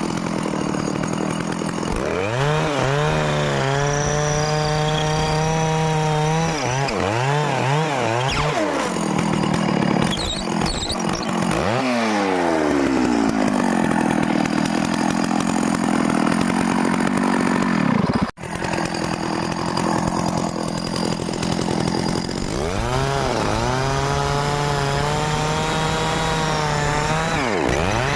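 Small engine-driven drill with a homemade bit boring into wood. The engine revs up and falls back several times, with a drop around the middle, a brief cut-out, and further revs near the end.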